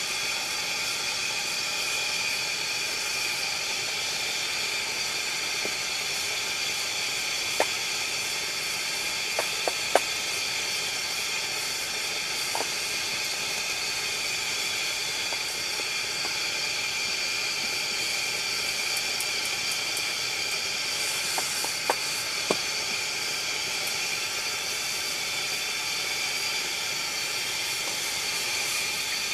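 Steady hiss of a chrome pressure heater's burner, with a few short sharp clicks about a third of the way in and again about three quarters through.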